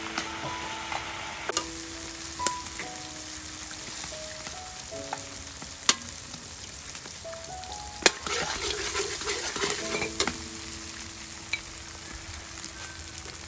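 Eggs frying in hot oil in a wok: a steady sizzle, with a few sharp clicks against the wok and a louder burst of sizzling about eight seconds in.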